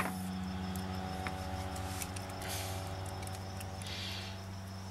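Small handling sounds, a light click and soft rustles, as fingers work a small wire connector plug on the FPV goggles' circuit board, over a steady low hum.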